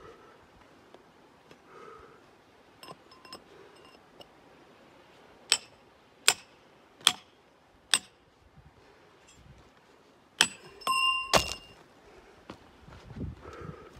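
Club hammer striking a steel chisel driven into a crack in rock: four sharp blows a little under a second apart, then after a pause a quick cluster of blows with a ringing metallic ping.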